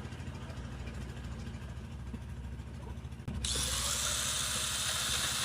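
A motor or engine running steadily with a low, even, pulsing hum. About three seconds in it cuts off abruptly and a louder, steady hiss takes over.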